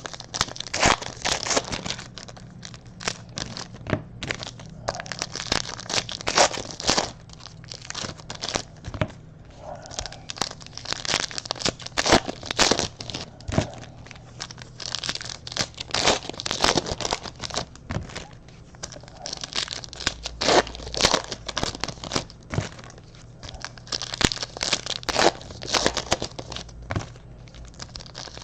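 Trading card pack wrappers being torn open and crinkled by hand in irregular, crackly spells.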